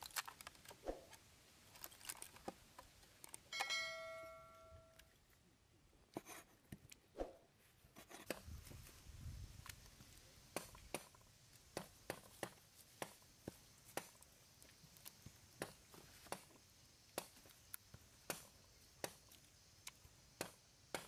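Knife cutting pig stomach on a wooden slab, the blade knocking the wood in even strokes about twice a second through the second half. Before that come a few scattered knocks from handling a bamboo tube, and one brief ringing tone about four seconds in.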